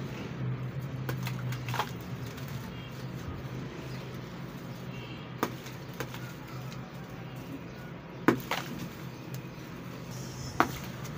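Hands crushing and crumbling a dry red sand brick, powder and crumbs falling into a plastic basin, with about half a dozen sharp crunches as pieces break, the loudest a little past the middle. A steady low hum runs underneath.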